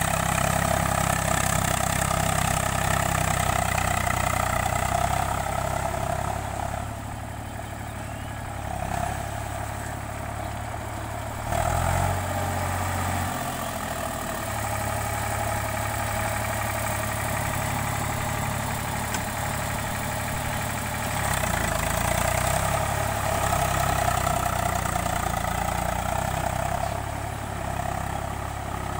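Eicher 485 tractor's diesel engine running steadily while working the land. It drops quieter for a few seconds about a quarter of the way through, then picks up again.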